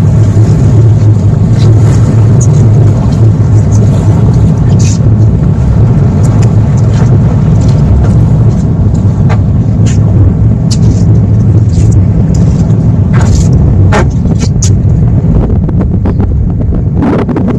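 Loud, steady low rumble of a passenger ferry under way: engine drone mixed with wind buffeting the microphone on the open deck.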